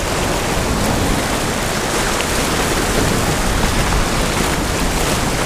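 Steady rushing noise of wind buffeting the microphone, mixed with small waves washing over the rocks at the shoreline.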